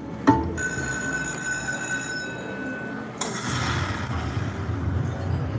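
Lightning Link Tiki Fire slot machine: a sharp click as a spin starts, then steady electronic tones while the reels spin. About three seconds in comes a noisy burst over a low rumble as six fireball symbols land, triggering the Hold & Spin feature.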